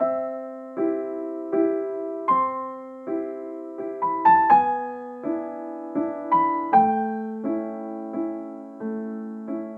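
Gentle solo piano music: soft chords struck about every three-quarters of a second, each ringing and fading before the next.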